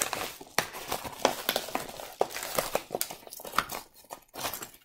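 A paper mailer bag being opened and handled, crinkling and rustling with many small irregular crackles. Near the end, small foil packs and papers slide out onto the table.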